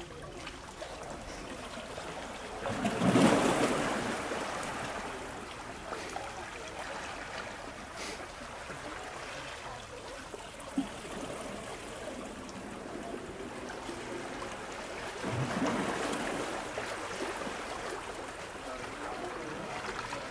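Small sea waves washing against shoreline rocks. The water swells loudest about three seconds in, again about three-quarters of the way through, and a brief click comes just past halfway.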